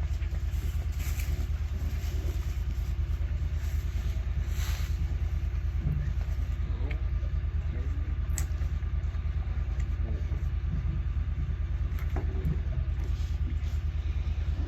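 An engine running steadily at idle, a constant low, fast-pulsing throb.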